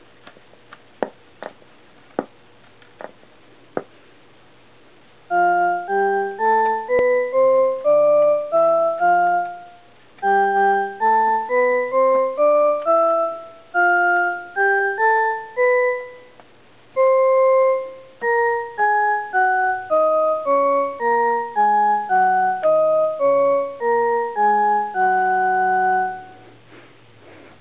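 Casio SK-1 sampling keyboard playing single notes one after another, stepping up the keyboard and then back down, roughly two notes a second. A few sharp clicks come before the first note.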